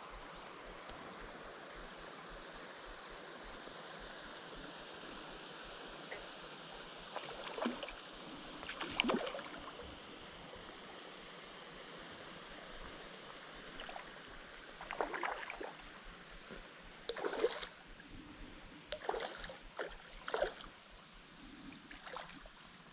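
Water splashing in a series of short bursts, about six times, as a hooked brook trout thrashes at the surface, over a steady faint hiss.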